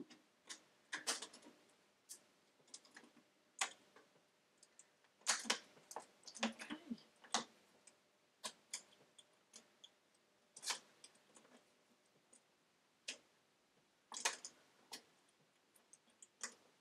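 Irregular small clicks and crackles of a plastic bottle, drinking straws and balloons being handled, as the straws are worked into the blu-tack-sealed neck of the bottle.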